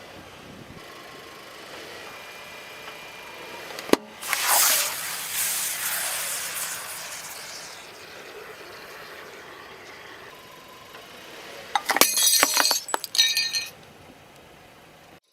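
Objects bursting and cracking under a car's tyre: a sharp pop about four seconds in, followed by a loud hiss that fades over several seconds, then a quick run of sharp cracks and crunches near the end.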